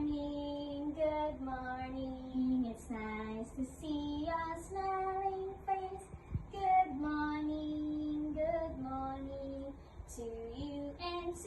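A high voice singing a simple children's song melody, holding each note and stepping from pitch to pitch.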